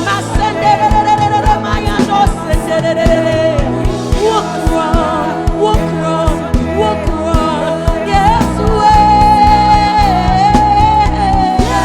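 Live gospel worship music: a singing voice over a band with sustained keyboard chords and a steady drum beat.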